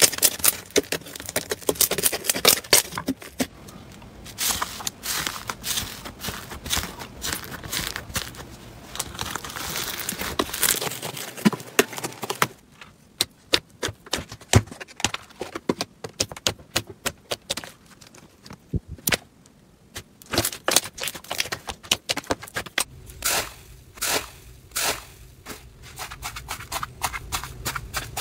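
Hands squeezing, poking and kneading slime: a steady run of sticky clicks, pops and crackles as air pockets burst. The clicking thins out about midway, when the slime changes to a fluffier one poked in its tub, and grows dense again later.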